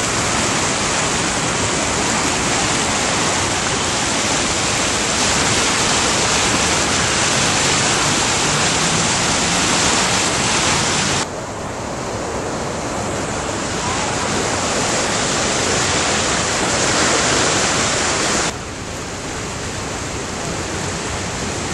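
Floodwater of the overflowing Boquet River rushing in a loud, steady wash. The sound drops abruptly twice, at about 11 and 18 seconds in, losing some of its hiss, then slowly swells back.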